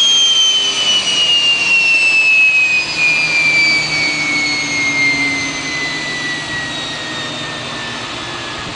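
US Air Force generator set spinning down: a high whine falling steadily in pitch over a loud rushing noise, fading slowly as the unit winds down.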